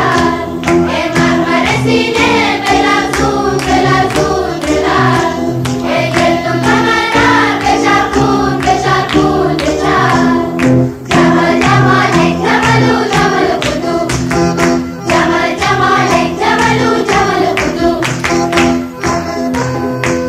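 Song music: a group of voices singing together in chorus over a steady, regular percussion beat.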